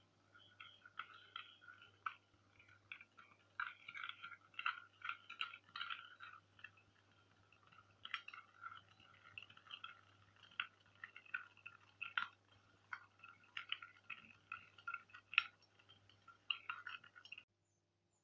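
Metal spoon stirring a thick mixture in a cut-glass bowl, clinking and scraping against the glass in irregular taps with a ringing tone. The clinking stops suddenly near the end.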